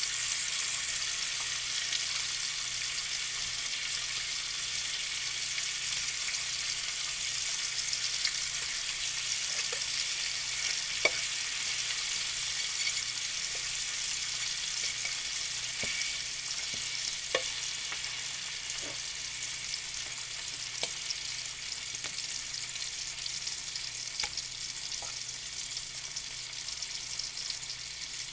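Bacon sizzling and crackling in hot fat in a Sunbeam electric frying pan, a steady high hiss with a few sharp ticks standing out.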